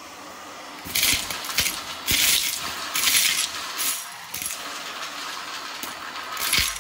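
Small hard pieces of test mess clinking and rattling in about five short bursts, over a steady hiss.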